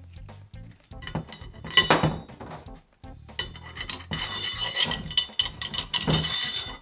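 Steel bolts and metal mill parts clinking, rattling and scraping as they are handled and laid out, loudest in a long clatter from about halfway in, over quiet background music.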